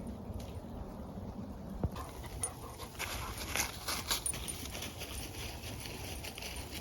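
Black Labrador retriever panting in short irregular breaths, with a sharp tap about two seconds in.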